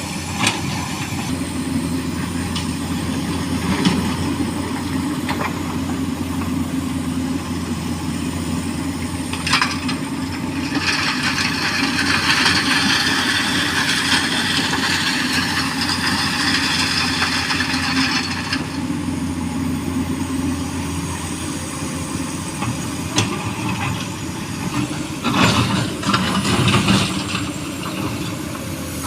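Hydraulic excavator's diesel engine running steadily while it loads small stones into a dump truck. Scattered knocks, then a long rattling rush of stones for about seven seconds, and a burst of clattering impacts near the end.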